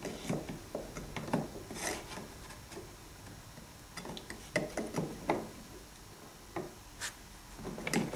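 Model-railway rock castings being handled and fitted into place, scraping and rubbing against each other and the wall in short irregular strokes with a few light knocks.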